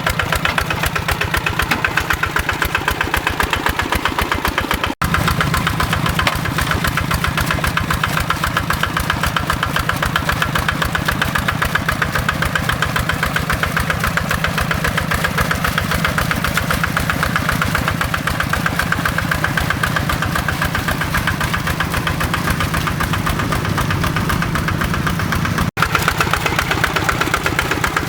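Kubota RD85 single-cylinder diesel engine of a hand tractor running steadily, with a fast, even knocking beat. The sound drops out for an instant twice, about five seconds in and again near the end.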